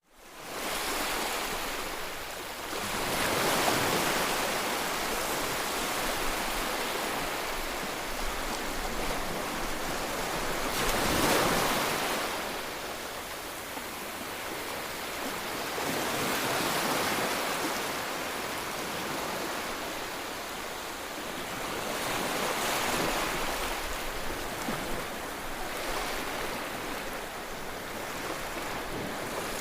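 Ocean waves breaking and washing on the shore: a steady surf hiss that swells with each wave about every six or seven seconds, the loudest wave about eleven seconds in.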